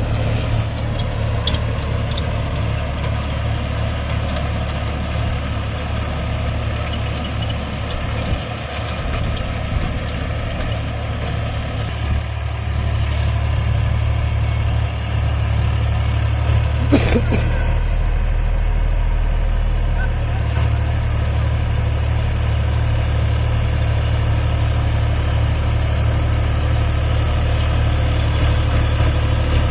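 Massey Ferguson 254 Dynasmart tractor's diesel engine running steadily, with a strong low drone, during ploughing. A single brief sharp knock sounds a little over halfway through.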